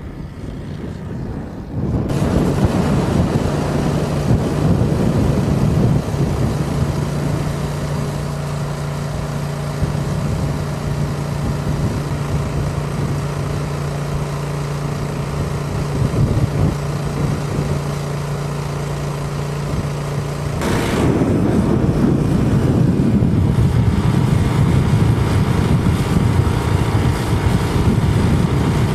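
A steady engine-like hum under a constant rushing noise; the hum cuts off about 21 seconds in and the rushing grows louder.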